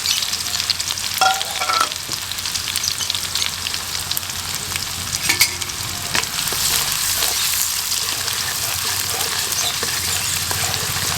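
Chopped garlic and ginger sizzling in hot oil in a pan, with many small crackles, while a spoon stirs and scrapes them.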